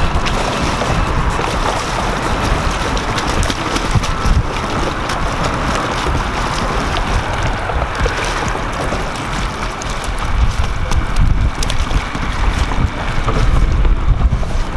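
Wind buffeting the microphone over small waves lapping and splashing against shoreline rocks.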